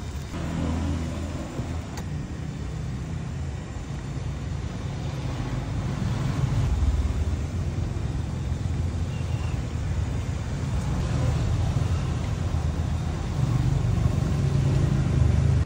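Street traffic: a steady engine rumble of passing motor vehicles that grows slowly louder.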